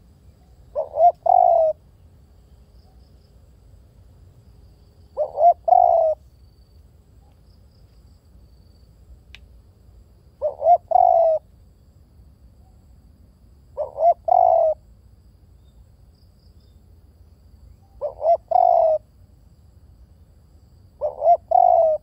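Spotted dove cooing: six phrases, every three to five seconds, each a couple of short quick notes followed by a longer coo.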